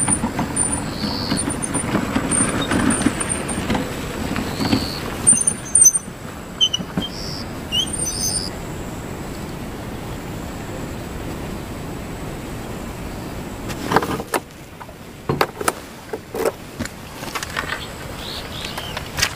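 Motorcycle engine running as the bike climbs a rough dirt track, easing off after about six seconds into a quieter steady hiss. A few sharp knocks and clatters follow near the end.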